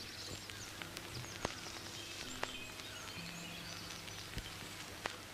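Faint outdoor ambience with birds chirping in short high calls, a low steady hum underneath, and a few sharp clicks scattered through.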